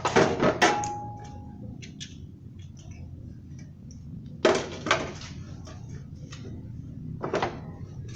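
Metal tools or parts clanking and clattering in three short bursts: one at the start, one about four and a half seconds in, and one near the end. A steady low hum runs underneath.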